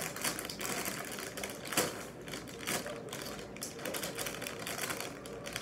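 Plastic cereal-box liner bag crinkling and crackling as it is tugged and pulled open by hand, a dense run of crisp crackles.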